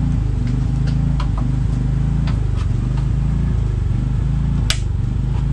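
A steady low mechanical hum, like a motor running, with light scattered clicks and ticks of hand tools and door hardware being worked, one sharper click near the end.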